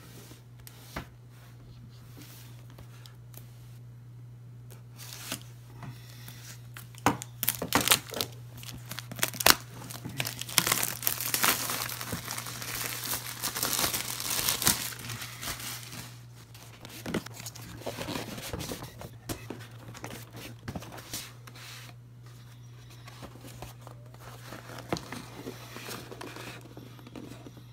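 Plastic shrink wrap crinkling and tearing as it is peeled off a cardboard product box, loudest in the middle stretch. Sharp snaps come before it and softer rustling of packaging after, over a steady low hum.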